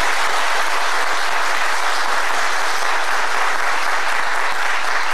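Audience applauding steadily, a dense even clapping that began just before and carries on throughout.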